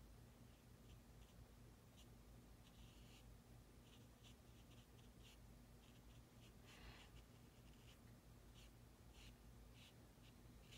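Faint, short, irregular scratchy strokes of a small watercolour brush dabbing paint onto paper, over a low steady hum.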